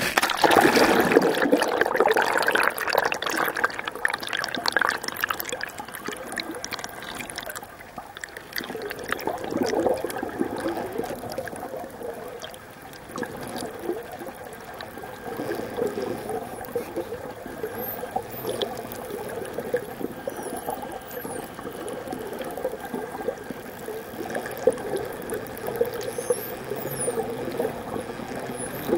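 Sea water splashing and bubbling around a camera as it goes under, loudest in the first few seconds, then settling into a steady muffled underwater wash of water and bubbles.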